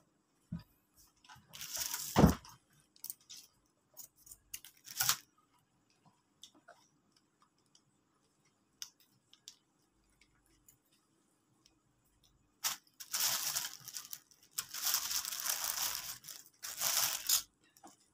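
Crispy breaded fried chicken being torn apart by hand and crunched, in irregular crackling bursts, with a longer run of crackling over the last several seconds. A single sharp thump comes about two seconds in.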